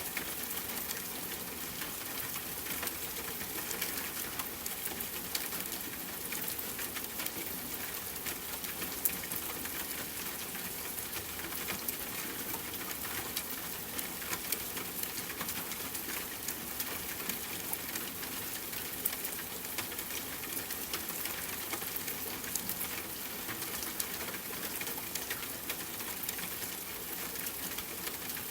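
Steady rain hiss mixed with a crackling wood fire, with frequent small sharp pops and snaps from the fire throughout.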